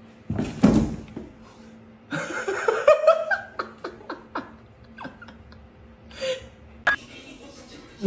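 A person laughing in short pulsing bursts that rise in pitch, among a few short clicks and knocks.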